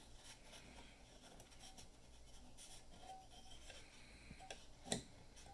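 Near silence: faint room tone, with a single short click near the end from the small metal lever on top of a Kodak Brownie No. 2 box camera being worked.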